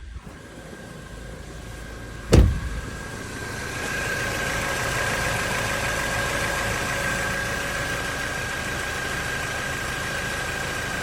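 Ford Mondeo Mk4's 2.3-litre four-cylinder petrol engine idling. About two seconds in there is one loud click, and from about three and a half seconds the running gets louder with a steady whine and a rattle. This rattle comes on whenever the air conditioning is switched on, and the owner is sure it is not the A/C compressor.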